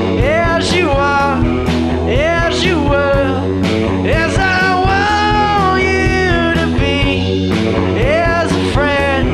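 Rock band playing live: electric guitars, bass guitar and drum kit, with a steady beat and a melody line that bends and slides in pitch.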